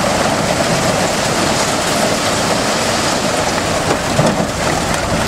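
A load of broken brick sliding and clattering out of a tipped dump-truck body in a dense, steady rattle, with the truck's engine running beneath it to hold the body up.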